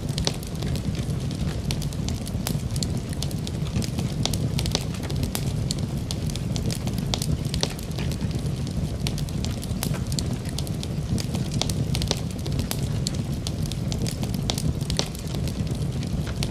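A cooking fire burning with a steady low rumble and frequent, irregular sharp crackles and pops.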